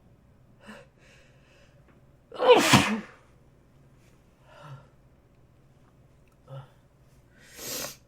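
A person sneezing once, loudly, about two and a half seconds in, with the pitch of the voice falling through the sneeze. A few quieter short breathing sounds come before and after it, the last a hissing breath near the end.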